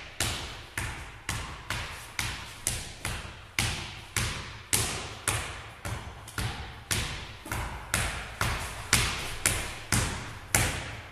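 A národní házená ball dribbled on a wooden sports-hall floor, bouncing in a steady rhythm of about two a second. Each bounce echoes in the hall.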